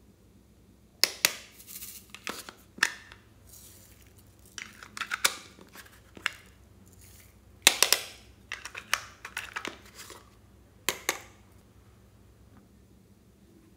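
Butterfly-shaped plastic case being handled and pried open by hand: a string of sharp plastic clicks and snaps with scraping and crinkling between them.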